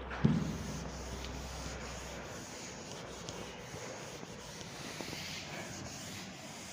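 Chalk being wiped off a chalkboard: faint, steady rubbing, with one short knock just after the start.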